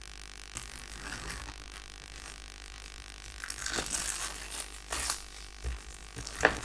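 A cardboard router box being opened by hand, with a pen worked at its sealed flap. Faint rustling at first, then louder scraping and tearing of the cardboard about four seconds in, and a few sharp taps near the end.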